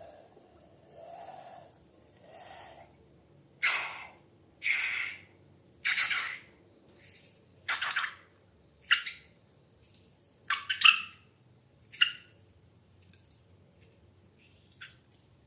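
Wet squelching and popping of slime being squeezed and worked by hand, in about ten separate squishes roughly a second apart, the sharpest of them a little past halfway.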